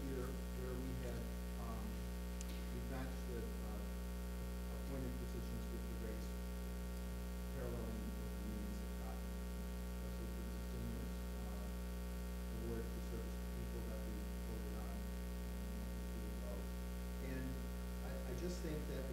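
Steady electrical mains hum on the audio feed, with faint, indistinct speech from a man talking away from the microphone.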